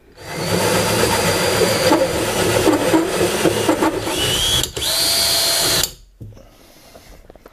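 Cordless drill driving a hole saw through plywood: a loud grinding cut that runs for about six seconds, with a brief break near five seconds. The drill's whine rises just before the break, runs steady after it, and cuts off suddenly about six seconds in.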